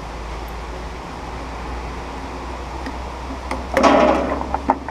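Over a steady low hum, a short burst of rustling and scraping comes about four seconds in, followed by a few light clicks, as cardboard and plastic packaging is handled.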